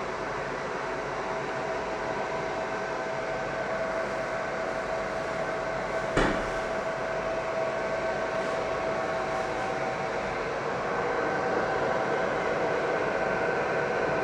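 Fiber laser marking machine running: a steady hum with a thin high whine. There is a single sharp click about six seconds in, and the hum grows a little louder and busier from about eleven seconds on.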